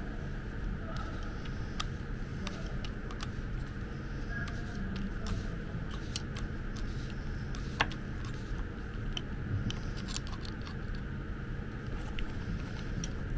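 Scattered small metallic clicks and taps as the keyless chuck of a Makita DDF485 cordless drill is turned by hand with a screwdriver clamped in it, checking the new chuck for wobble. One sharper click comes about eight seconds in, over a steady low background hum.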